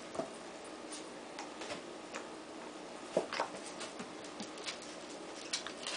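A mother dog and her six-week-old puppies playing on a vinyl floor and blanket: scattered light ticks and taps of claws and paws, with a few brief louder scuffles.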